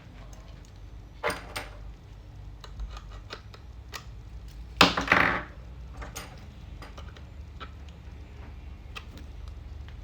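Light clicks and taps of laptop parts and plastic being handled on a workbench, with two louder rustling scrapes, a short one just over a second in and a longer one of about half a second near the middle.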